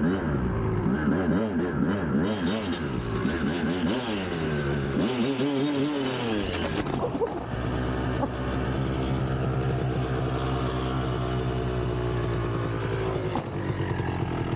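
1999 Kawasaki KX250 two-stroke dirt bike engine revving up and down repeatedly, then holding a steady pitch from about seven seconds in.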